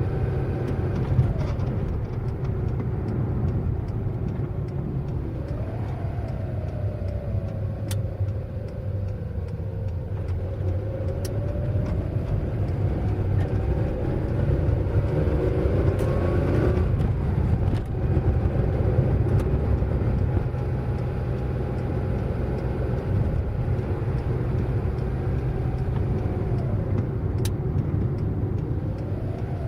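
A car driving at speed over a steady low road rumble, its engine note rising and falling several times. About halfway through it climbs highest, then drops off sharply.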